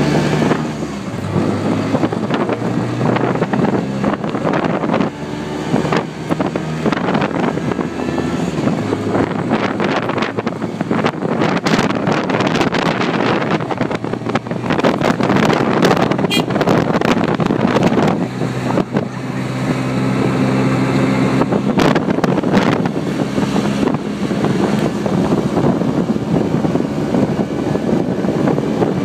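Small motor of a Cocotaxi motor rickshaw running as it drives along, its engine note rising and falling with speed, with road noise and wind buffeting the microphone in the open cab.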